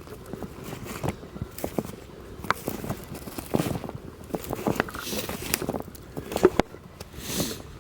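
Footsteps crunching through snow in the woods, uneven steps with scattered cracks and rustles.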